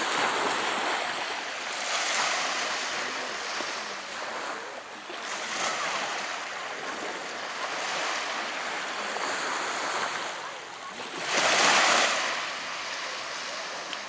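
Small waves breaking and washing up on a sandy beach, rising and falling in several surges, the biggest about three-quarters of the way through.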